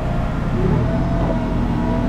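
Heavy scrap-yard machinery running steadily with a deep rumble and hum, one of its tones rising in pitch about half a second in.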